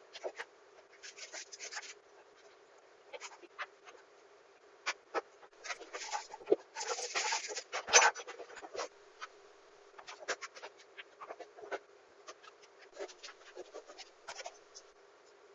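Irregular scratching, clicking and light tapping in short clusters, busiest in the middle, with one sharper knock about eight seconds in.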